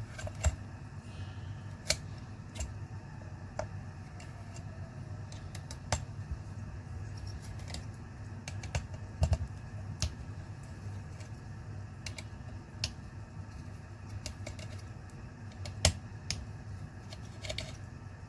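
Irregular sharp clicks and taps, about a dozen scattered unevenly, over a steady low hum: small tools and plastic and metal laptop parts being handled during a disassembly.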